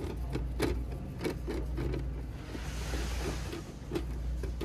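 Plastic parts of an opened Northwestern toy capsule vending machine being handled by a gloved hand: a run of irregular knocks and clicks, with a brief rustle near the middle, over a steady low hum.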